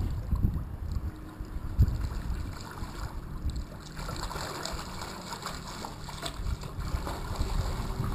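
Wind buffeting the microphone in gusts, with water splashing and sloshing from a swimmer's strokes from about halfway through.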